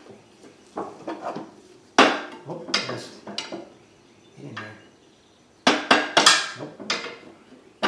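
Hammer blows on metal against a Subaru 2.5L flat-four engine, driving it to break free of a corroded dowel pin that holds it to the transmission. There are a few blows about two seconds in, then a quicker run of blows near the end.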